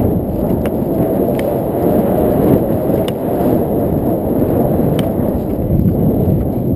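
Wind buffeting the microphone of a rider's action camera on a moving horse: a loud, steady, low rumble. A few faint sharp clicks come through it.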